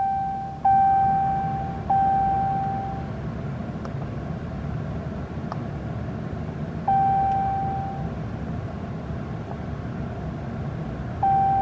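Ram 3500 instrument cluster chiming: a single clear tone struck and fading, heard twice in quick succession early on, again about seven seconds in and once more near the end, during the oil-life monitor reset after an oil change. Two faint clicks fall between the chimes, over a steady low background hum.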